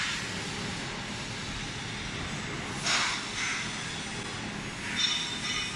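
Steady mechanical hum with hiss, broken by a short hissing burst about three seconds in and a brief high whistling squeal near the end.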